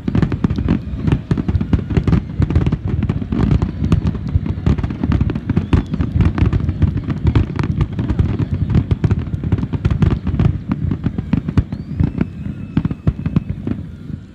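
Rapid barrage of aerial fireworks shells exploding, many booms and crackles overlapping with no gap between them, easing off near the end.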